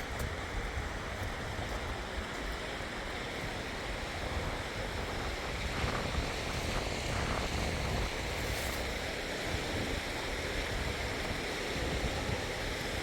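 Steady rushing outdoor noise, like running water or wind, with a gusty low rumble on the microphone.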